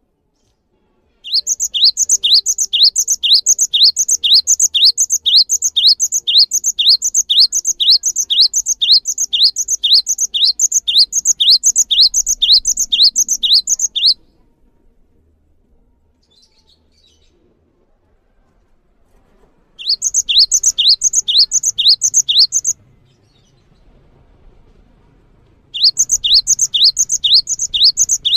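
Cinereous tit (gelatik batu) singing its long 'wucit' song: a fast run of the same high, upward-sweeping whistled note repeated about twice a second. A long bout of some thirteen seconds starts about a second in, followed after a pause by two shorter bouts near the end.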